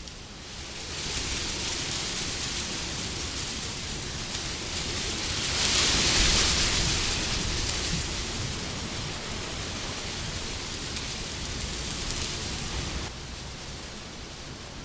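Wind blowing as a steady rushing noise that swells into a stronger gust about six seconds in, then eases and drops lower near the end.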